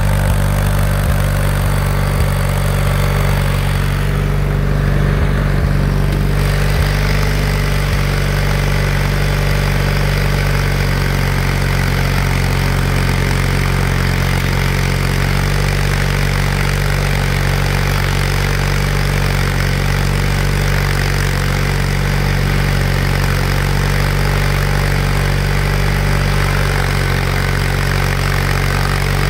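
Simplicity garden tractor's engine running steadily.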